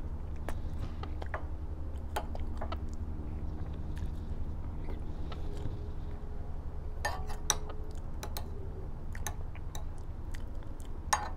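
A person eating: chewing, with scattered light clicks and a quick run of sharper clinks about seven seconds in, as a metal spoon works in a bowl of curry. A steady low rumble runs underneath.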